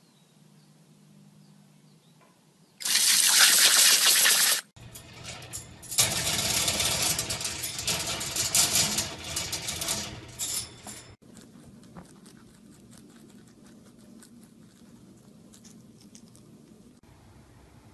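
A garden hose nozzle sprays water for about two seconds and cuts off abruptly. It is followed by a longer noisy stretch full of clicks, then quiet room noise.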